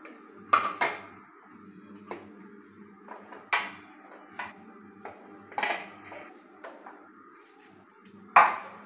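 A metal spoon scraping and knocking against a plastic cup and plate as soft food is dished out: a string of sharp clatters, about eight in all, the loudest about half a second in and near the end.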